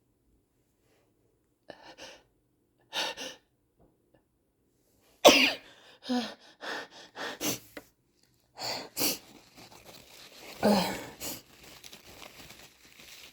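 A person sneezing, with short breaths and sniffs around it. The loudest sneeze comes suddenly about five seconds in, and another forceful burst follows near eleven seconds.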